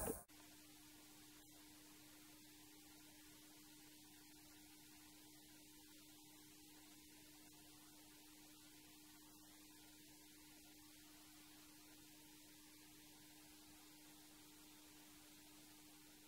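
Near silence with a faint, steady hum on one low tone over light hiss.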